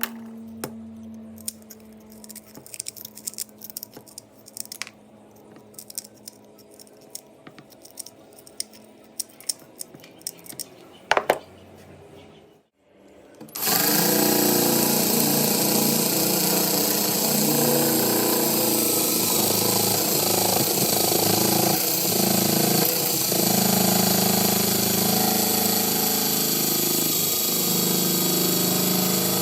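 Light scattered clicks and knocks of handling, then, about 13 s in after a brief silence, an angle grinder fitted with a reused broken disc starts up and runs loudly and steadily.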